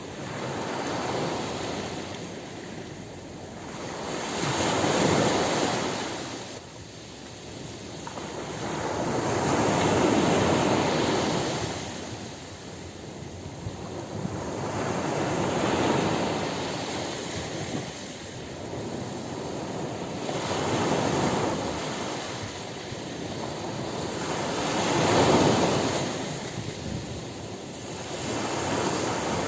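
Ocean surf breaking on a beach: waves swell and wash up the shore one after another, about every five seconds, with a steady hiss between them.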